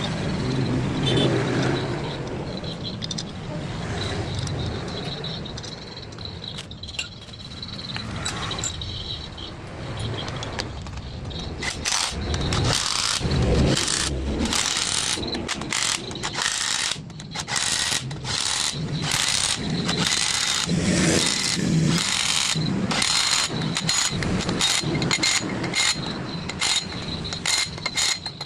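Metal-on-metal workshop sounds from work on a PS120 truck differential: from about twelve seconds in, a dense, irregular run of sharp clicks and knocks, several a second, mixed with duller thuds of parts being handled. Before that, only a steady low background noise.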